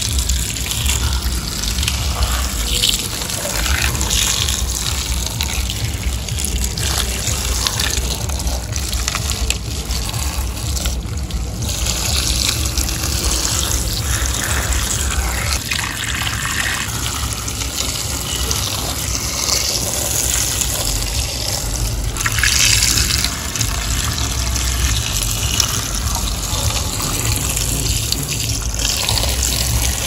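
Water gushing steadily as die-cast toy tractors and trucks are washed under it.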